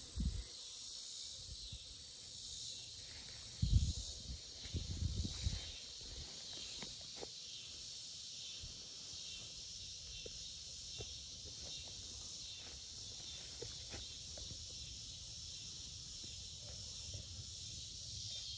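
Steady high-pitched chorus of insects, with a few low thumps about four to five and a half seconds in.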